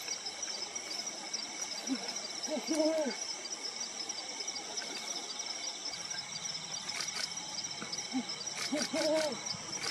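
Brown wood owl calling twice, about six seconds apart. Each call is a short low hoot followed by a pair of longer hoots that rise and fall in pitch. A steady high insect drone runs underneath.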